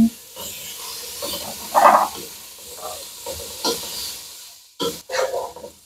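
Diced thick-cut bacon sizzling in a dry pot, with no oil, starting to render its own fat, while a wooden spatula stirs and scrapes it around. There is a louder scrape about two seconds in and a few short knocks near the end.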